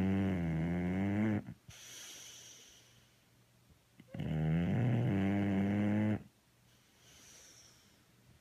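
A bully-breed dog snoring while awake: two long, loud, rattling snores, each followed by a quieter hissing breath.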